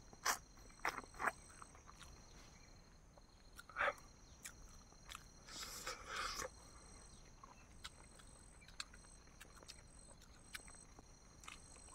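Mouth sounds of eating boiled eggs: a few sharp lip-smacks and chewing clicks in the first second and a half, then a short breathy intake around four seconds in and a longer one around six seconds in.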